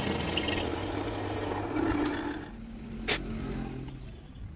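A steady mechanical running noise that dies away about halfway through, followed by a single sharp click.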